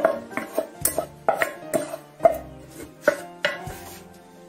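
A spoon knocking and scraping against a metal bowl and a glass jar while a thick oily mixture is spooned from the bowl into the jar: irregular sharp clinks, about nine of them, over steady background music.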